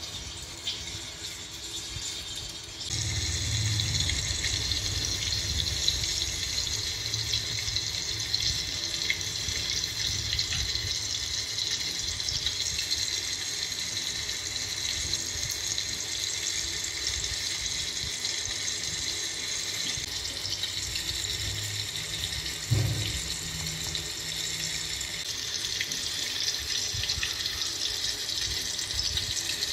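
Steady watery hissing, a pretend-cooking sound effect, that comes up about three seconds in, with one low thump near the end.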